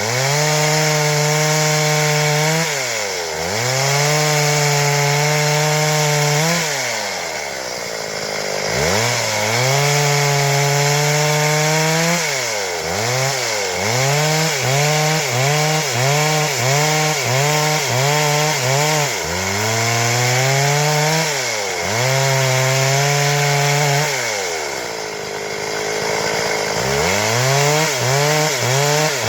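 Stihl MS 382 two-stroke chainsaw cutting wood, held at high revs and several times let off and throttled up again. In the middle stretch and near the end the engine pitch wavers rapidly as the chain bites.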